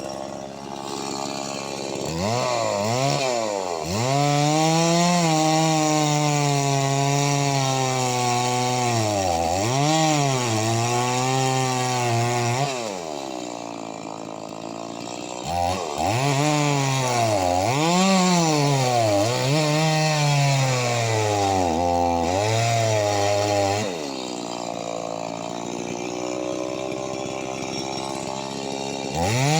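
Stihl MS 180 two-stroke chainsaw with a somewhat dulled Picco Micro chain cutting a large log. The engine revs up and sags again and again under the load of the cut, and drops back to a lower speed twice, around the middle and near the end.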